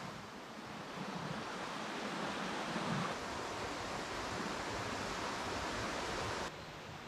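Steady rushing of water in a forest stream, which drops to a quieter rush near the end.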